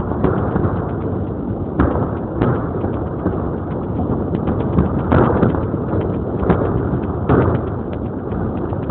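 Fireworks exploding in a dense, continuous barrage: a steady rumble full of rapid crackles, with louder booms about two seconds in, twice around five to six and a half seconds, and again a little after seven seconds.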